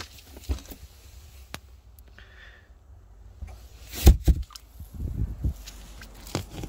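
Scattered knocks and rubbing from hands handling a boat's vinyl bow seat cushions, with one loud thump about four seconds in and a cluster of softer knocks shortly after.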